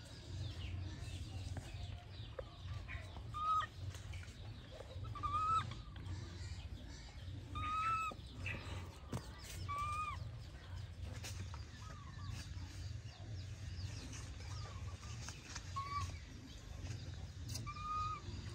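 Short rising-and-falling animal calls, about a dozen at irregular intervals a second or two apart, over a low steady hum.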